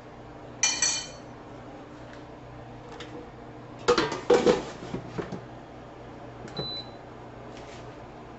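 Air fryer control panel beeping twice in quick succession, then a run of sharp clattering knocks as the fryer is handled, and a single short high beep later on.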